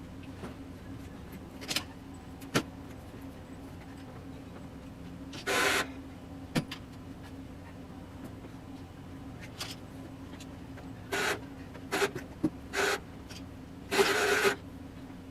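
A ratchet strap being cranked tight in short rasping bursts, about five times, with a few sharp clicks between them, over a steady low engine hum.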